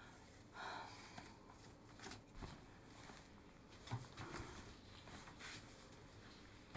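Near silence: faint rustling of clothing and hair as a woman arranges her hair, with a few soft clicks and a small knock.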